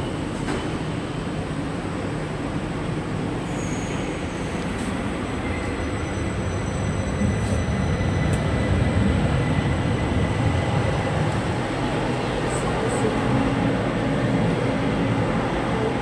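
Light rail train running, a steady rumble that grows a little louder about seven seconds in.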